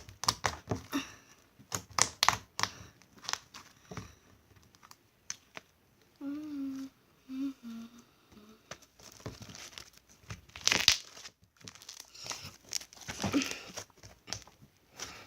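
Crinkling and crackling of a packet of gold foil sheets being handled and opened, in many quick sharp crackles. A short hum of a voice comes in about six seconds in.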